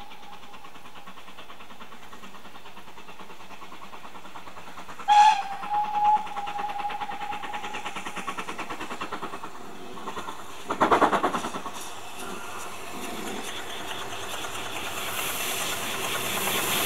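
Steam locomotive: a steady whistle note, sounded again sharply about five seconds in, then the even rhythmic beat of the train moving on the rails. A loud burst of noise comes about eleven seconds in, and steam hiss grows louder near the end.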